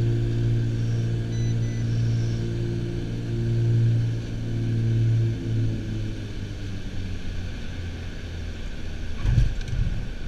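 Piper Aerostar's twin piston engines droning in the cockpit during the landing. The drone fades about five and a half seconds in as power comes off, leaving a lower rumble of the roll on the runway. There are two short high beeps early on and a sudden thump near the end.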